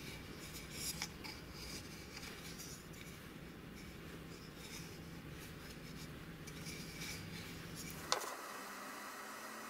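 Faint handling sounds of a glued octagonal wooden ring being turned in the hands: light rubbing and a few small clicks of wood, over a steady low hum. A sharp click about eight seconds in, after which the hum drops away.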